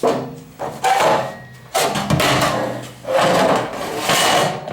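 Sheet-steel parts of a 1940 Snap-on tool box being handled: metal sliding, scraping and clunking about five times in a row, with a faint ring in the steel.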